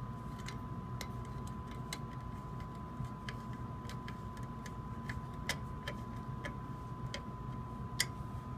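Scattered light clicks and taps at an irregular pace, about one or two a second, with two sharper ones near the middle and near the end, over a faint steady hum and a thin steady high tone.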